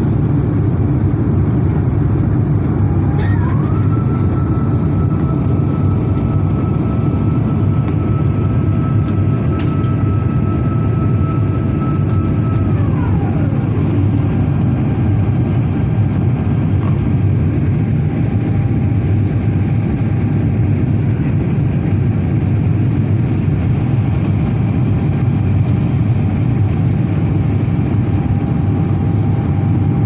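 Steady loud roar inside the cabin of an Airbus A350 climbing after takeoff: engine and airflow noise. A faint whine rises about three seconds in, holds for roughly ten seconds, then slides down and fades.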